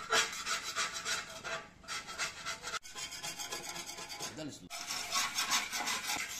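Hand paint scrapers scraping flaking yellow paint off a McCulloch lawn mower deck in rapid, repeated rasping strokes, breaking off briefly twice.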